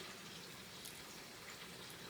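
Faint, steady sizzle of oil bread frying in hot oil.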